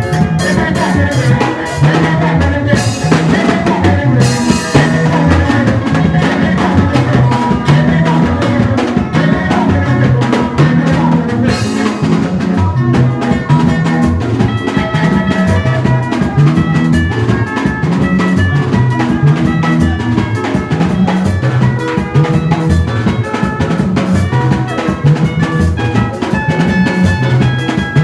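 Music with a drum kit keeping a steady beat over a stepping bass line, with no singing.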